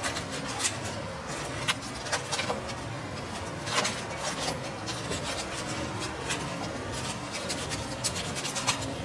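Dried porcini and other bolete slices, not rehydrated, being stirred and scraped around a frying pan, with irregular dry scratching strokes.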